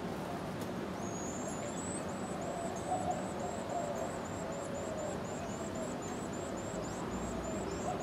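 Carolina wren nestlings begging: a rapid, even series of thin, very high peeps, about three a second, starting about a second in as the parent comes to the nest. Underneath runs a steady low background noise with a wavering low tone.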